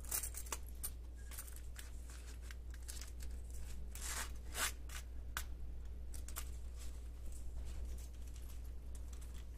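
Faint handling noise of a leather key case with keys on metal hooks: scattered small clicks and rustles as the keys are clipped on and the case is closed and turned in the hands, one click a little louder about four and a half seconds in.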